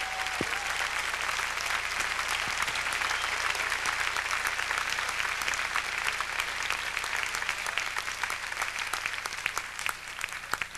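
Concert audience applauding, a dense clapping that thins out and fades near the end.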